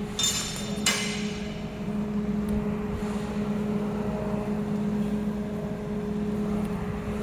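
Steady low electrical machine hum, one unchanging tone with an overtone, with two short hissy crackles in the first second.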